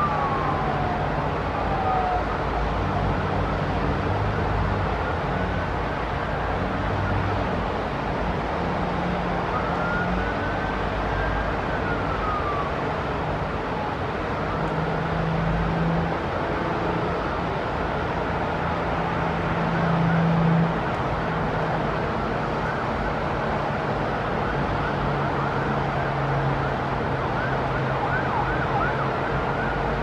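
Emergency-vehicle siren wailing, falling in pitch at the start, rising and falling again about ten seconds in, and giving short quick yelps near the end, over a steady low city rumble.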